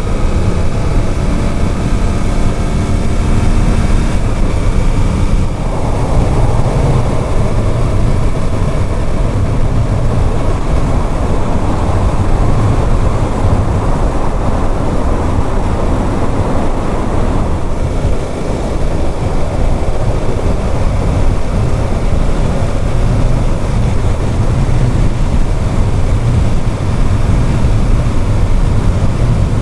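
Suzuki GSX-8S's 776 cc parallel-twin engine pulling up through the revs for about the first five seconds, then steady wind and road noise at expressway speed. The bike is new and still being run in.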